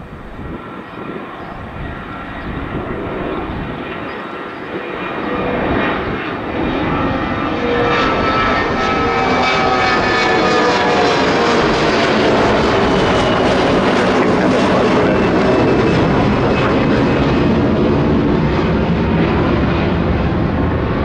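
Mitsubishi CRJ-900 regional jet on its takeoff run, its two rear-mounted turbofans growing steadily louder. Whining engine tones fall in pitch as it passes, about a third of the way in, and then settle into a steady loud roar.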